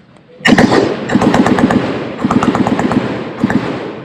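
Automatic gunfire: machine guns firing long, rapid bursts that start suddenly about half a second in, with short breaks between bursts, and echo off as the firing stops near the end.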